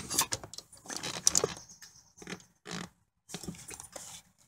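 Irregular clicks, knocks and rattles of a Mini Cooper's metal seat rail mechanism and plastic seat trim being handled by hand.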